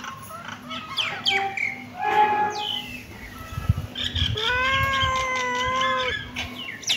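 Kittens meowing: several short, falling mews in the first half, then one long, steady meow about four seconds in.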